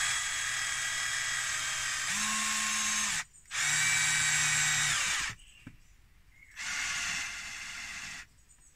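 Cordless drill driving self-drilling screws into softwood, in three runs of the motor. The first run speeds up about two seconds in, and the last is shorter and quieter.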